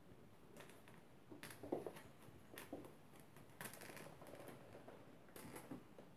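Neva Masquerade kittens at play, heard faintly: scattered soft scuffles, rustles and light taps of paws on a play mat and floor, the loudest just under two seconds in.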